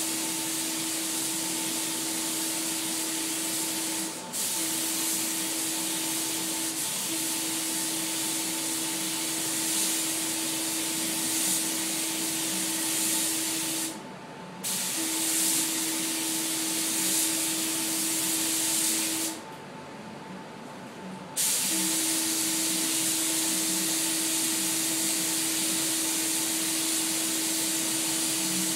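Gravity-feed paint spray gun hissing in long, steady passes with a thin whistle in the hiss. The trigger is released briefly about four seconds in and again around fourteen seconds, then for about two seconds around twenty seconds, when the hiss stops and only a quieter hum remains.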